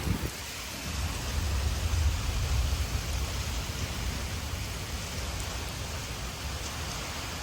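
Heavy rain falling steadily in a severe thunderstorm, with a low rumble in the first few seconds.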